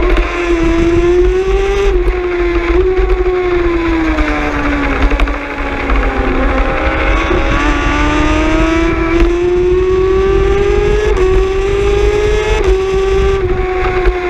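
Racing superbike engine at high revs, heard from onboard with wind noise on the microphone. Its pitch falls as the rider rolls off and downshifts into a corner, then climbs steadily under hard acceleration, broken by three quick upshifts from second gear up to fourth.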